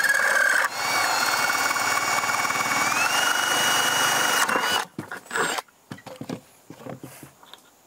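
Cordless drill with a half-inch spade bit boring through the rim of a plastic 5-gallon bucket: a steady motor whine that breaks off briefly just under a second in. It then runs on with its pitch stepping up slightly about three seconds in, and stops about four and a half seconds in, followed by a few light knocks.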